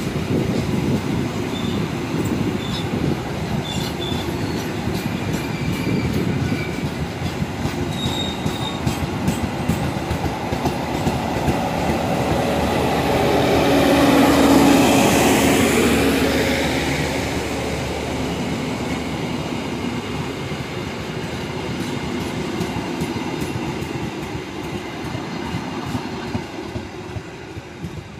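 Passenger coaches rolling past with a steady rumble of wheels on rail, with a few faint short high squeals early on. About halfway, the generator car passes and its diesel generator swells to the loudest point with a steady low hum. The sound then fades as the last coach rolls away.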